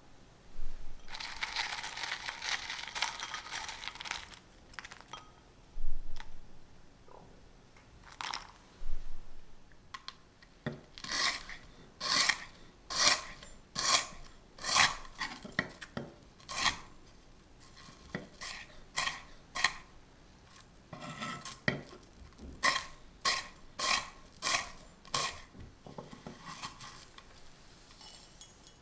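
Kitchen knife chopping freeze-dried strawberries on a wooden cutting board: a long run of crisp cuts, about two a second, each blade stroke crunching through the dry fruit onto the board. It starts about a third of the way in, after a few seconds of dry crackling as the brittle strawberries are handled in a glass bowl.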